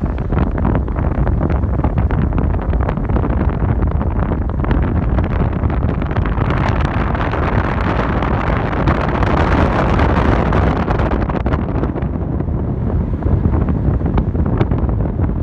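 Wind buffeting the microphone over the low rumble of a moving car. A louder rushing swell builds about six seconds in and fades again about five seconds later.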